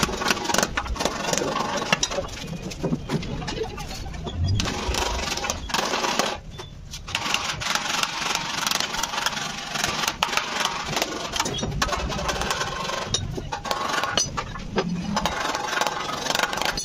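Metal hand tools tapping and scraping against a Honda Activa scooter's plastic body panels on a stone work block, as dents are worked out: a dense run of sharp clicks and knocks, with a short lull about six seconds in.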